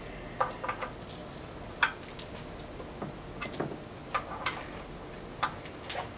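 Ratchet of a long-handled wrench clicking in short irregular runs as the clutch cover bolts are tightened down onto the flywheel, with one sharper click about two seconds in.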